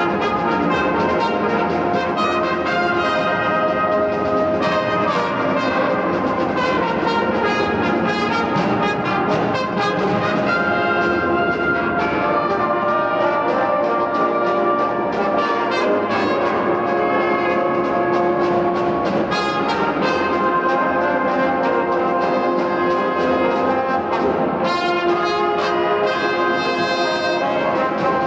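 Brass and reed marching band playing a tune: brass and saxophones over sharp, regular drum strokes.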